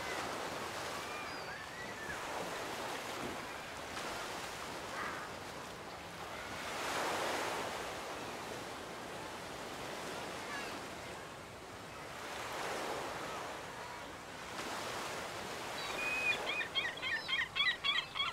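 Ocean waves washing up on a beach, swelling and fading every few seconds. Near the end a bird gives a quick run of loud calls, about five a second.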